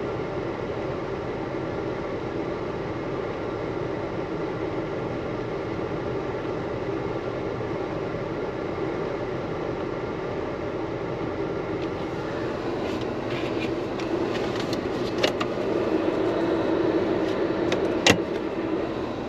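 Steady cabin hum of a Jeep Cherokee with its engine idling. From about twelve seconds in come light clicks and taps of a gloved hand on the dashboard, the sharpest a click near the end.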